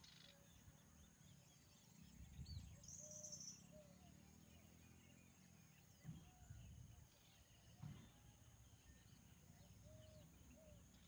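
Near silence: quiet pond-side ambience with faint, short bird calls repeating every second or two and a brief high chirp about three seconds in, plus a few soft low rumbles.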